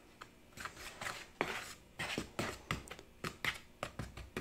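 Small wooden spoon stirring a dry flour mix in a plastic mixing bowl: a run of soft scraping strokes, about three a second.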